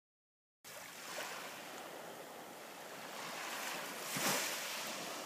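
Small waves washing onto a sandy beach, a steady hiss of surf that swells, with one wave breaking louder about four seconds in.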